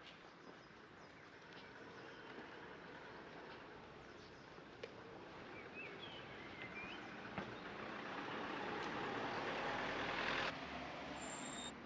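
Outdoor ambience in which a passing vehicle's noise swells over several seconds, then drops off abruptly about ten seconds in. A bird chirps briefly near the middle.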